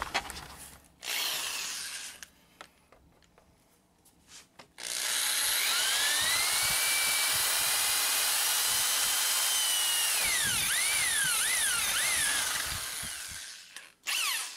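Cordless drill boring through the plastic bottom case of a laptop. The motor runs steadily for about nine seconds, starting about five seconds in, and its whine wavers up and down in pitch near the end as the bit works through.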